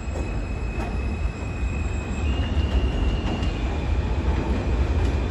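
New York City subway train on the elevated steel structure of the BMT Jamaica Line, rumbling as it approaches, growing louder. A high, steady metallic squeal rides over the rumble, with a second, higher squeal tone joining a little past halfway, along with faint clicks.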